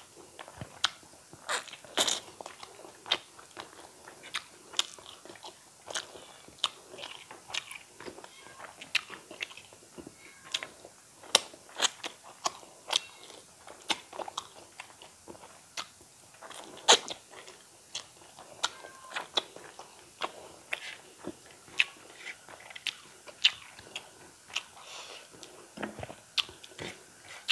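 A person chewing mouthfuls of fried eel, eel curry and rice with crispy fried topping close to the microphone. Irregular sharp mouth clicks and smacks come about one to two a second.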